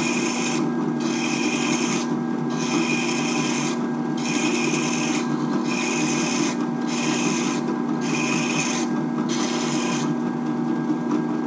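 Benchtop drill press motor running with a steady hum while a steel leather hole punch is rolled against its spinning 180-grit diamond abrasive. The punch's dull cutting edge is being ground to a bevel, with a rasping grind in repeated strokes about every second and a half. The grinding stops about ten seconds in and the motor keeps running.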